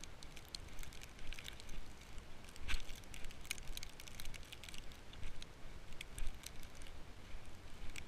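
Footsteps crunching in fresh snow: an irregular run of short crunches from several people walking, over a steady low rumble.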